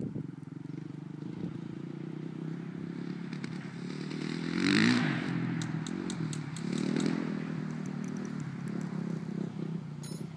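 Suzuki RM-Z450 motocross bike's single-cylinder four-stroke engine running as it is ridden, its pitch rising and falling with the throttle. It is loudest about five seconds in and swells again a couple of seconds later.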